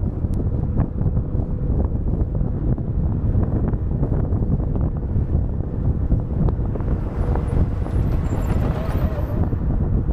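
Wind buffeting a car-mounted microphone over road and tyre noise of a car at highway speed, a steady low rumble; a hiss swells briefly about seven to nine seconds in.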